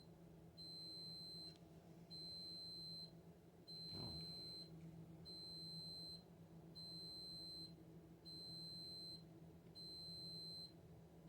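An electronic beeper sounding a repeated high-pitched beep, each beep about a second long with half-second gaps, about seven times, over a faint low hum.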